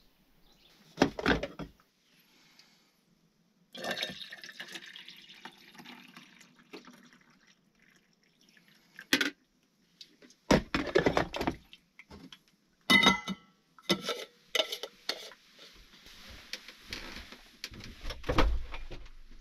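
Water splashing and dishes clinking in a string of separate bursts and sharp clicks, with quieter hissing between them.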